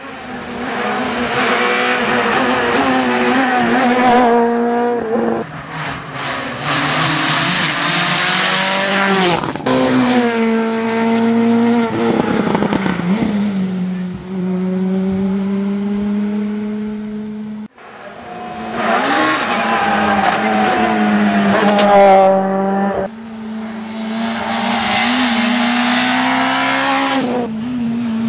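Rally cars driven flat out one after another on a tarmac special stage: the engines rev hard, pitch climbing through each gear and dropping at every upshift. About 18 seconds in, one run cuts abruptly to the next.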